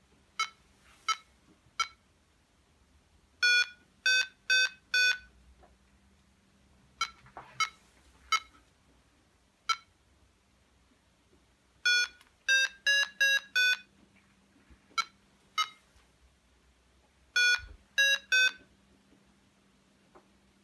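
XC Tracer Mini variometer beeping its climb tone as it is lifted by hand: single short beeps a second or so apart, with three quick runs of closely spaced beeps, the sign of the vario picking up small rises in height.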